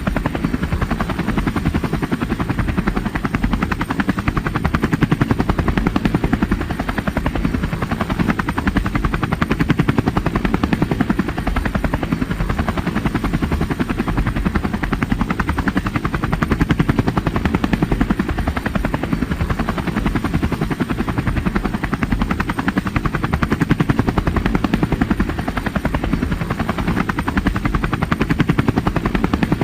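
Helicopter in flight: a steady, rapid chop of the rotor blades over engine noise, heaviest in the deep end and unchanging throughout.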